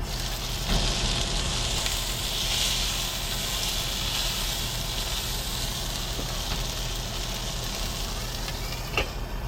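Hamburger patties sizzling in a hot frying pan. The sizzle starts with a clunk under a second in and holds steady, over a low hum.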